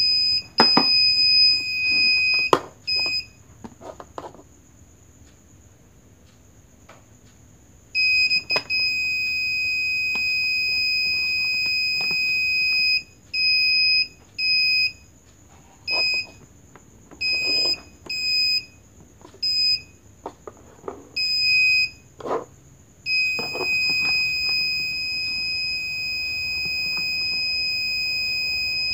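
Parking sensor display's buzzer sounding a steady high-pitched beep tone. It is a long unbroken beep, the parking sensor's warning that an object is very close. The tone stops for a few seconds and resumes, breaks into separate beeps for several seconds, then goes back to one long unbroken tone near the end, with light handling knocks in between.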